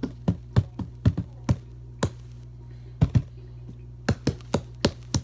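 Tapping out the rhythm of a song as a guessing game: sharp taps in quick groups with short pauses between phrases, over a steady low hum.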